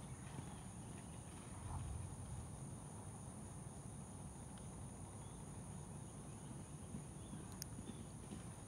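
Steady chorus of insects droning at two high pitches, over a faint low rumble, with one short tick near the end.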